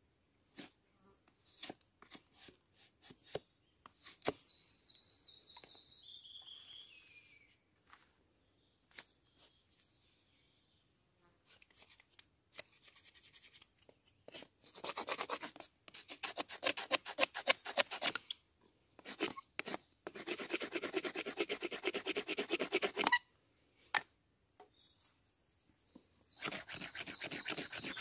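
Wooden spoon being shaped with rapid back-and-forth rasping strokes on the wood, in bursts of a few seconds through the second half. Before that, scattered light taps and clicks, and a short falling whistle-like call.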